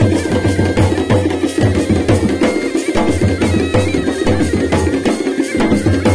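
Kumaoni chholiya folk music: drums beating a fast, steady rhythm under the held tones of a masakbeen (bagpipe).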